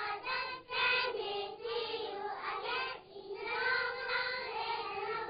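A group of Tibetan schoolchildren singing a farewell song together, in sung phrases with a short break about three seconds in.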